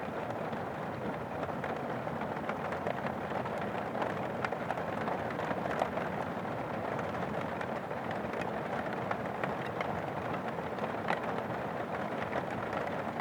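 Steady rain falling on an umbrella and pavement, with many small ticks of individual drops striking the umbrella.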